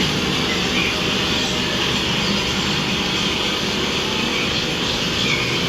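Steady rumble and hiss of the earthquake ride's train car and effects, with faint voices mixed in.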